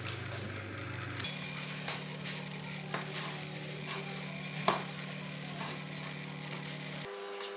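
Kitchen knife slicing boiled rapa whelk meat on a wooden cutting board: sharp knocks of the blade on the board, starting about a second in and coming roughly once a second, the loudest just past the middle.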